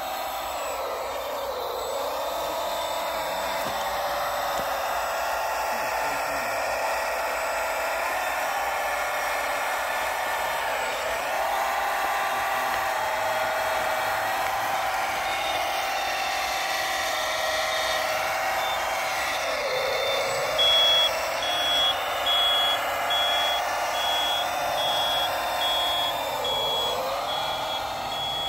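Scale RC hydraulic wheel loader working: a steady whine of its motors and hydraulic pump, the pitch sagging briefly now and then as it takes load. In the last third a high reversing beeper starts, beeping about once a second.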